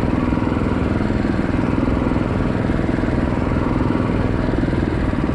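Stock Predator 212 single-cylinder engine of a Coleman B200R mini bike running steadily at low speed.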